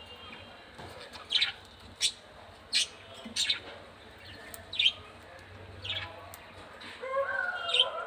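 Budgerigars chirping: a string of short, sharp high chirps, roughly one a second. Near the end a lower, wavering call joins in.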